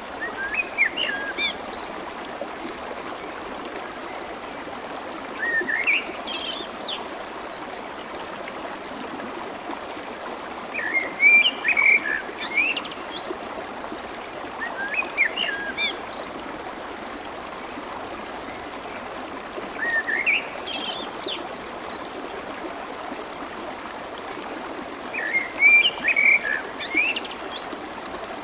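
Swift, clear stream water running with a steady rushing babble. A songbird calls over it in short bursts of rising chirps, about every four to five seconds.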